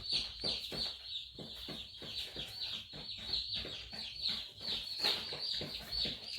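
A brood of young chicks peeping together: a dense, unbroken run of short, high cheeps, each falling in pitch.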